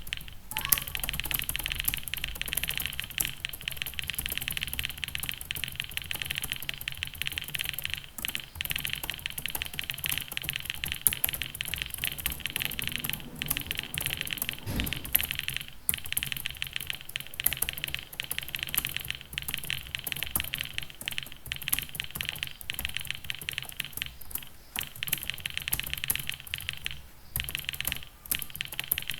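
Fast, continuous typing on a computer keyboard: a rapid, unbroken patter of key clicks during a timed speed test, with only momentary slowdowns.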